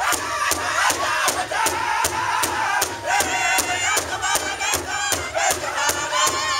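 Powwow drum group: several men strike one large hide drum in unison in a fast, even beat while singing together in high, wavering voices.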